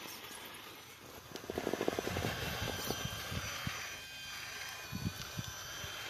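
Small electric motor of a radio-controlled rock crawler whining, with a quick run of rattling clicks from tyres and chassis scrabbling on rock about a second and a half in, and a few knocks near the end.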